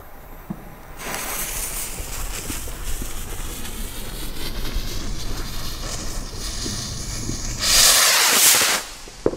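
Gaoo R15 firework rocket hissing steadily on the ground for several seconds, then launching with a loud rushing hiss about eight seconds in that lasts about a second.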